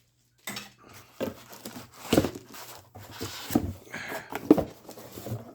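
Unpacking handling noise: plastic wrapping rustling and crinkling, with irregular small knocks and clicks as parts are taken out and handled.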